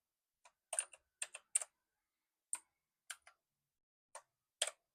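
Keys of a Jedel WKL102 mechanical keyboard being pressed one at a time: about ten short, sharp clicks at uneven intervals, some in quick pairs.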